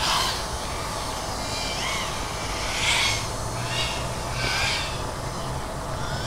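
FPV racing quadcopter motors whining in several short swoops of pitch that rise and fall as the throttle changes.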